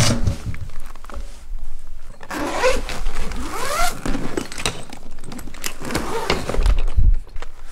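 Close handling noise: scraping and sharp clicks, with a few short rising squeaky tones about three seconds in.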